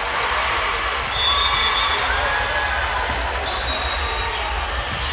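Gymnasium ambience at a volleyball match: steady background chatter of spectators with volleyballs thudding on the court. Two brief high squeaks come about a second in and again past the middle.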